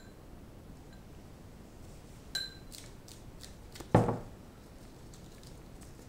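Glass jar of foil-wrapped chocolate eggs being handled: a short glassy clink a little over two seconds in, a few light clicks and rustles, then a heavy thud as the jar is set down on a wooden table about four seconds in. Faint paper rustling follows.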